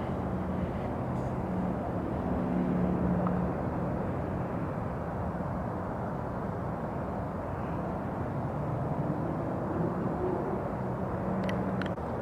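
Steady low rumble of a running vehicle, with a faint drifting hum in it. A few sharp clicks come near the end.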